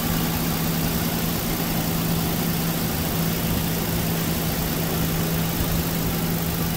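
2016 Ford Explorer's 3.5-litre V6 idling steadily with a constant hum. It has no misfire now that the failed cylinder-3 ignition coil has been replaced.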